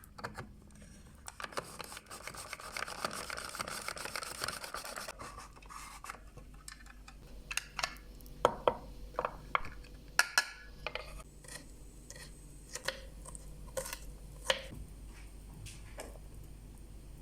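Kitchen preparation sounds: a few seconds of steady rubbing or scraping, then a string of short sharp clinks and taps of utensils and dishes.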